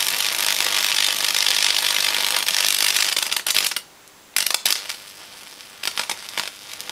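High-voltage electrical arcing from a microwave-oven-transformer rig: a dense, steady crackle that cuts off abruptly about four seconds in, then a short burst and a few scattered crackles as the arc works on a CR2025 coin-cell battery.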